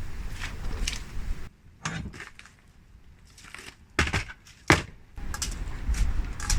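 A few sharp knocks, the loudest about four seconds in and again just after, over a low rumble that drops away for a few seconds in the middle.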